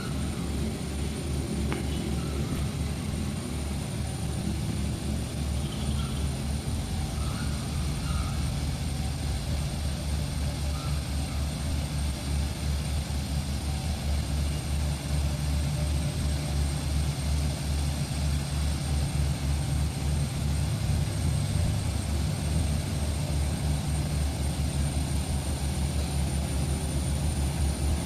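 Heavy diesel engines running steadily under load as a truck stuck in soft mud is pushed by a bulldozer, with a deep pulsing drone and a steady high whine over it.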